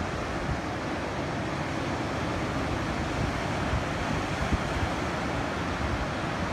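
Ocean surf washing steadily onto a beach, with wind buffeting the microphone in irregular low thumps.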